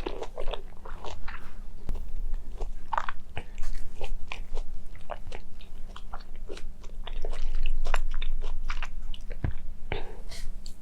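Mandarin orange being bitten and chewed: a string of many short, irregular mouth clicks, over a faint steady low hum.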